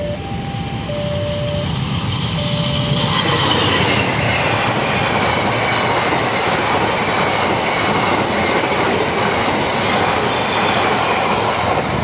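Level-crossing warning signal sounding repeated tones on two pitches over a low rumble. About three seconds in, a passenger train's stainless-steel coaches pass close by with loud wheel-on-rail noise, a clickety-clack over the rail joints and a high whine that slowly falls in pitch.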